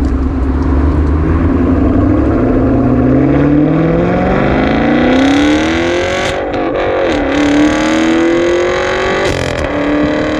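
Car engine accelerating hard, its pitch climbing steadily for about five seconds, dipping about seven seconds in, then climbing again.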